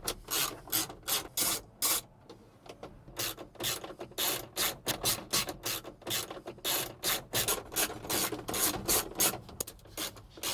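Hand ratchet with a 1/4-inch socket clicking in quick runs of strokes as it backs out small dash screws, with a short pause about two seconds in.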